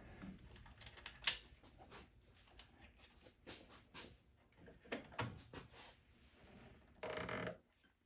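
Scattered light clicks and knocks of handling, with one sharper click about a second in and a short rustling scrape near the end.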